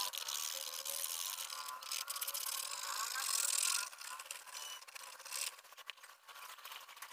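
Graphite pencil scratching on paper in quick back-and-forth shading strokes, a dense rasping hiss that turns fainter and patchier about four seconds in.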